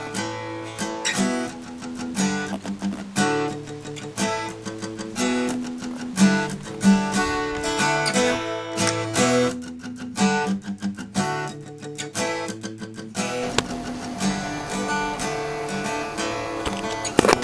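Acoustic guitar music: a run of plucked and strummed notes.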